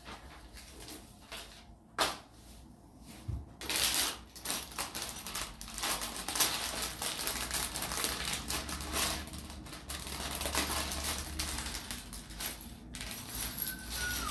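A plastic bag of small plastic building pieces crinkling as it is opened and handled, with a dense crackle and many small clicks. Near the end the pieces rattle onto the table as they are poured out.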